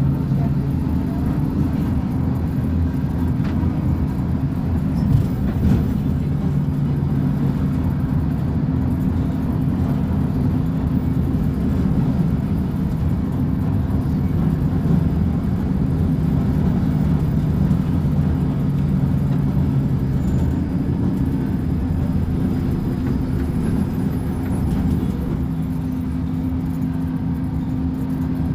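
Diesel engine of a Volkswagen 17-280 OT bus running steadily, its pitch shifting slightly a few times.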